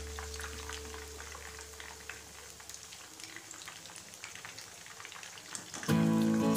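Chicken pieces deep-frying in hot oil in a kadai, a steady fine crackle and sizzle. Background music starts loudly near the end.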